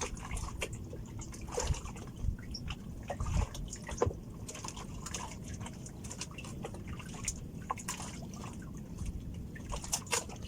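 Sea water lapping and dripping around a small fishing boat, with scattered small irregular clicks and knocks.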